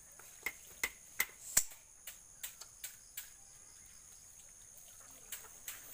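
A metal blade chopping and prying at a fresh coconut's fibrous husk: a run of sharp, irregular knocks through the first three seconds, then two more near the end. Insects keep up a steady high chirring behind.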